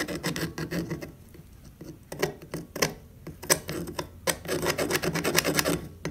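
Serrated inner jaws of steel grozing pliers rubbed back and forth over a soldering iron's tip, a quick scraping rasp in three spells, filing built-up gunk off the tip so that it conducts heat again.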